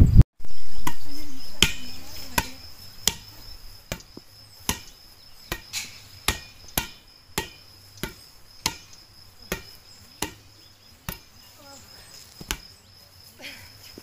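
A steady high-pitched insect trill, such as crickets in grass, with sharp taps repeating about every 0.7 seconds.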